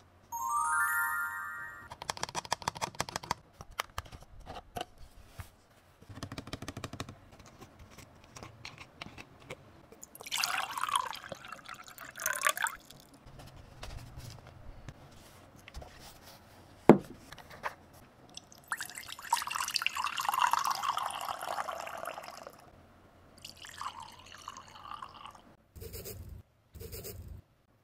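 Water pouring and trickling into small plastic toy containers in two spells, between clicks and taps of plastic toy kitchen pieces being handled. A brief rising chime sounds at the start, and one sharp click stands out about halfway through.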